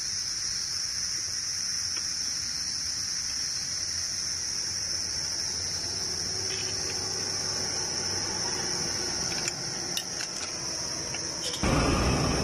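Insects chirring in one steady, high-pitched drone. A few light clicks come about two-thirds of the way in, then a louder rush of noise over the last second.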